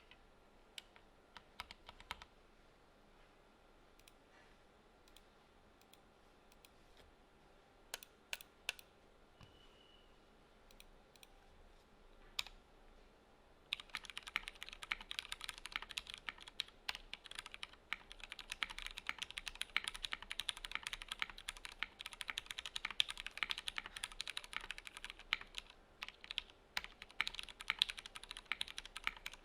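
Swagkeys Shelby 80 gasket-mount mechanical keyboard with an aluminium plate, lubed Franken switches (Razer orange stems in Cherry MX Black housings) and CRP R4 keycaps, being typed on. A few scattered single keystrokes come first, then continuous fast typing starts about halfway through.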